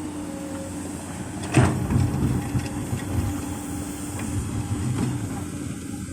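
Komatsu PC200 excavator running with a steady diesel drone. About one and a half seconds in there is a sharp knock, followed by several seconds of irregular rumbling and clattering before it settles back to the drone.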